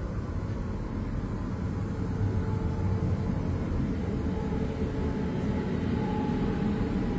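Steady low rumble and hum inside an electric train carriage. It grows slightly louder about two seconds in, and a faint steady whine joins about halfway through.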